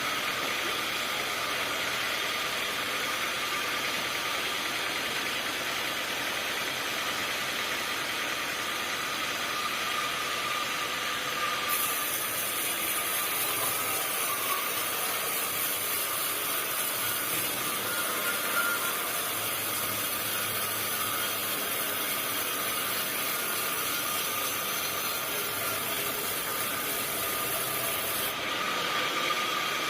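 Sawmill machinery running steadily, with a high hiss that sets in suddenly about twelve seconds in and stops near the end.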